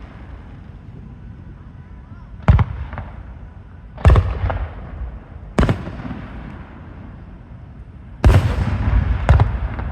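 Aerial fireworks shells bursting: three loud booms a second or two apart, then a quick run of several bangs close together near the end, each followed by a rolling rumble.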